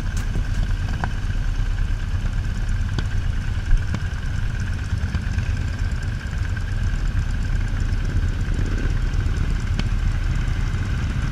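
Several cruiser motorcycles' engines running at low speed as a group, a steady low rumble.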